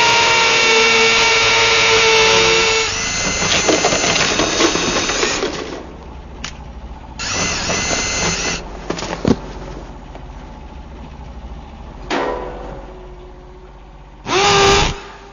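Power tool running: a steady whine for about three seconds, then rougher grinding noise that stops and restarts in several short runs, with a sharp click in the middle and a brief loud whir near the end.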